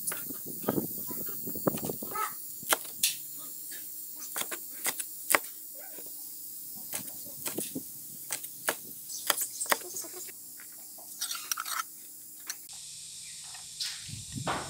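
Cleaver chopping chillies and garlic on a wooden cutting board: quick, irregular sharp knocks of the blade against the wood, thinning out near the end.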